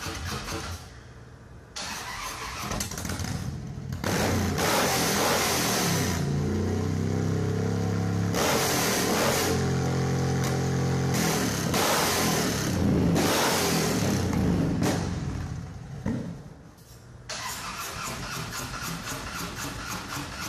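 Touring bagger motorcycle engine idling, then revved hard and held high for about ten seconds, its pitch rising and falling, before dropping back to a pulsing idle.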